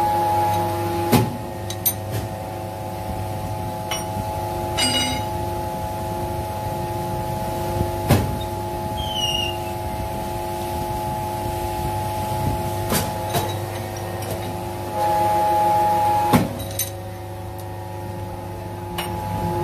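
Hydraulic thread-rolling machine running with a steady, many-toned hum, with several sharp metal clanks. The hum swells for a second or so near the end.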